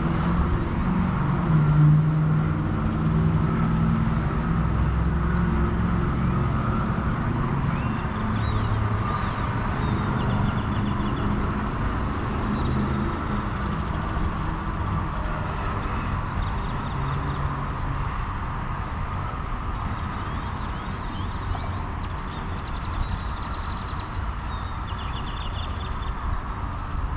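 Steady rumble of nearby road traffic, with a vehicle's engine hum strongest over the first several seconds and then fading away.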